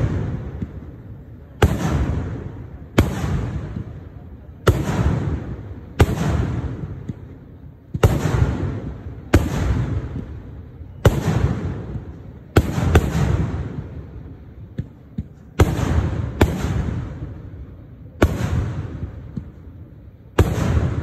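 Kerala temple-festival fireworks (vedikettu): loud blasts going off one after another, about one every one and a half seconds, each followed by a long rolling echo.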